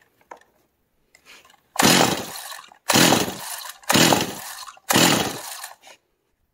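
Four pulls of a Stihl MS260 chainsaw's recoil starter, about a second apart, cranking the two-stroke engine over with a compression gauge screwed into the spark-plug hole; each pull is loud at the start and dies away. This is a compression test of the newly fitted cylinder and piston.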